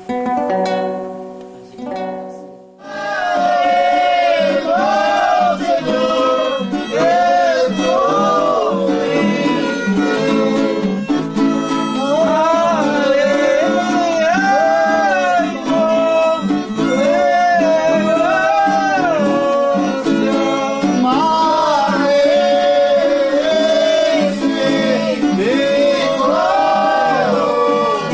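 Venezuelan traditional music: a plucked string instrument alone for about the first three seconds, then a gliding, bending melody line that comes in over a steady plucked-string accompaniment and carries on.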